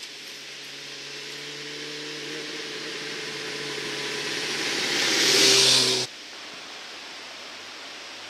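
Motorcycle engine approaching along the road, growing steadily louder to a peak about five and a half seconds in, then the engine sound drops away abruptly, leaving a steady hiss.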